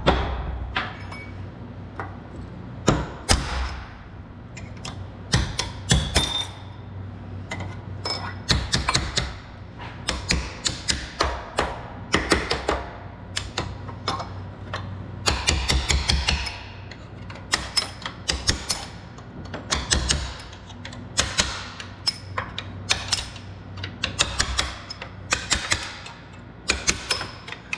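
Repeated sharp metal strikes, irregular and sometimes in quick runs, as an old lower control arm bushing is driven out of its arm after being pie-cut.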